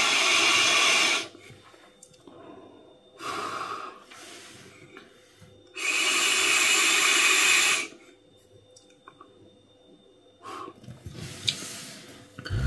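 Two long draws on a vape pod, each about two seconds of even, airy hissing as air is pulled through the device's airflow and coil. A short breath comes between them, and vapour is breathed out near the end.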